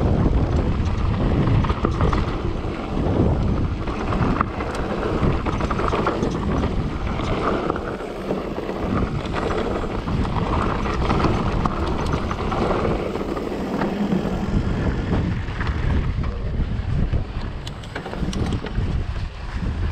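Mountain bike riding a dirt trail at speed: steady tyre roar and wind buffeting the microphone, broken by many small clatters and knocks from the bike over rough ground.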